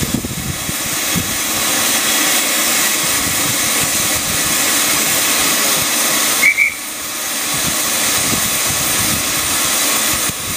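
Steam hissing steadily and loudly from the standing Schools Class steam locomotive No. 925 Cheltenham. The hiss breaks off briefly, with a short higher note, about six and a half seconds in.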